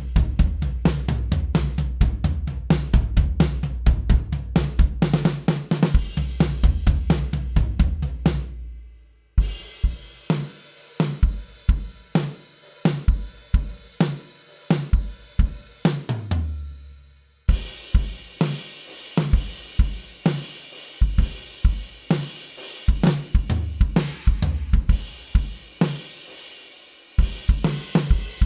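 Sampled rock drum kit playing grooves: kick drum, snare, hi-hat and cymbals. The pattern changes twice, with short gaps about nine and seventeen seconds in, and crash cymbals wash over the later part.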